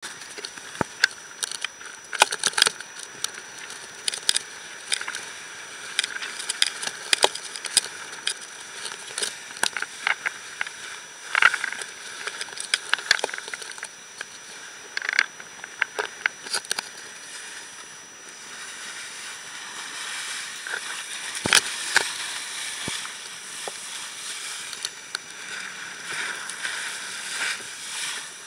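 Class40 racing sailboat planing under sail: a steady rush of water and spray along the hull, with wind on the microphone. Frequent sharp crackles and slaps run through the first half, followed by a smoother rushing stretch with a couple of loud cracks a little past the middle.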